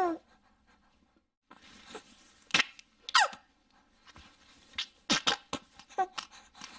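An infant's short excited squeals and coos, a few gliding down in pitch, with quick sharp breaths between them.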